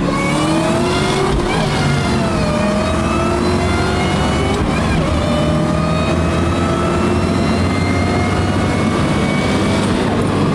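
A car engine accelerating hard through the gears. Its pitch climbs, drops at a gear change about a second and a half in, climbs again, and breaks once more around five seconds in before rising more slowly.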